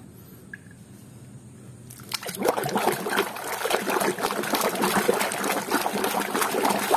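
Water splashing and sloshing as a hand swishes muddy plastic toy animals around in a basin of water, starting about two seconds in and running dense with small splashes.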